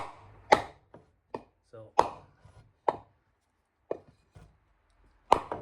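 Hammer blows driving the shaft out of a skid steer idler wheel: several sharp, irregularly spaced metallic strikes with a short ring after each, and lighter taps between them.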